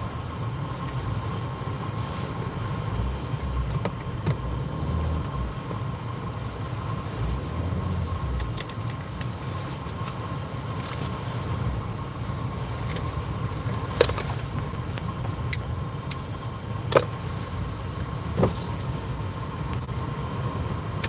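Engine and road noise heard from inside a moving car: a steady low rumble, with a few short sharp clicks in the second half.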